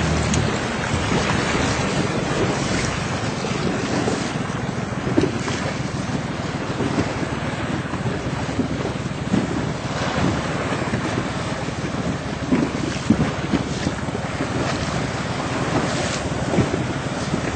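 Wind buffeting the microphone and sea water rushing and splashing past a small boat under way, a steady noisy rush with small irregular gusts.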